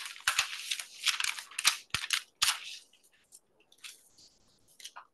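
Sheets of paper being handled and rustled on a desk: a quick run of crisp crackles for the first two and a half seconds, then a few faint scattered ticks.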